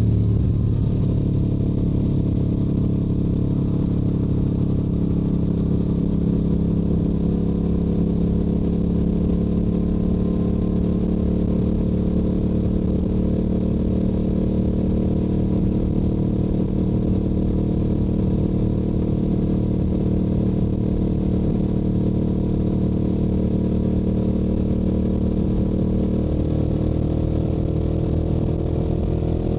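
Yamaha YZF-R7's 689 cc parallel-twin engine running through its stock exhaust at highway cruising speed, with wind rushing over the microphone. The engine note rises slowly and steadily, then climbs more clearly in the last few seconds as the bike accelerates.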